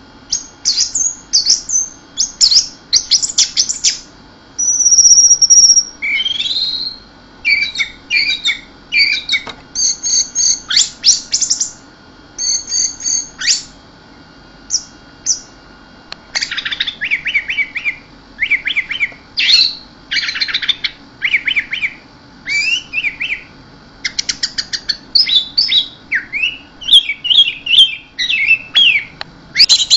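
Orange-headed thrush singing: a long run of short, quick phrases of rapidly repeated high notes, broken by brief pauses.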